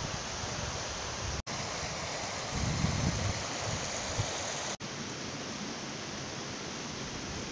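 Steady rushing of a small mountain stream running over rocks, with a brief low rumble near the middle. It breaks off for an instant twice where the footage is cut.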